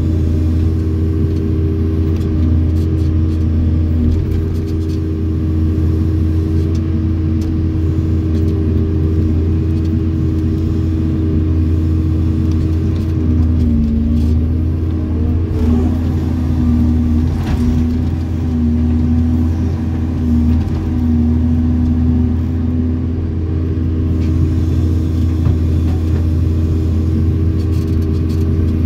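Hydraulic excavator's diesel engine running steadily under working load, heard from inside the cab: a loud, constant low drone with a higher hum on top that drops in pitch and wavers about halfway through as the hydraulics take up the boom and bucket.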